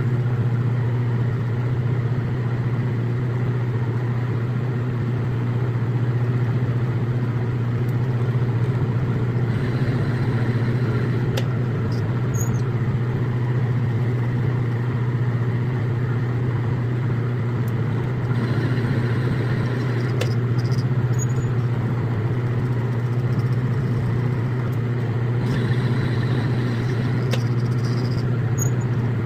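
Metal lathe running steadily while threading a rifle barrel, its motor hum even throughout, with a few faint light ticks.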